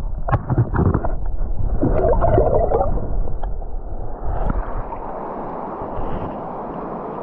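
Water gurgling and knocking around a camera held underwater in a shallow stony river. About four seconds in the camera comes up out of the water, and the sound turns into the steady rush of the river flowing over stones.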